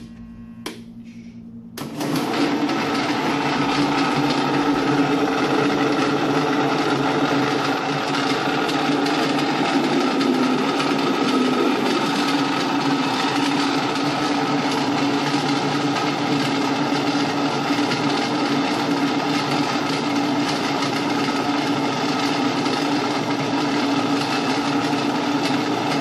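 Spolu low-speed industrial blender with a stainless steel cup switched on about two seconds in, its motor then running steadily at full load as it chops carrot pieces in water.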